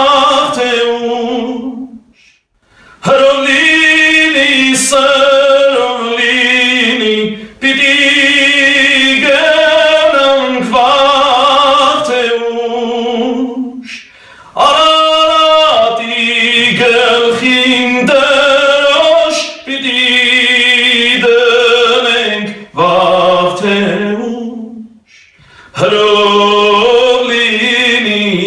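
A man singing an Armenian patriotic song a cappella, with no accompaniment, in long held notes with vibrato. He breaks off briefly between phrases three times, about two seconds in, halfway through and near the end.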